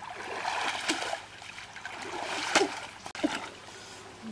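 Stream water splashing and sloshing as a person wades waist-deep through it, with sharper splashes about a second in and, loudest, about two and a half seconds in.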